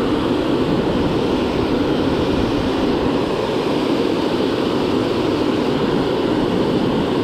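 Steady rush of river water flowing over a dam.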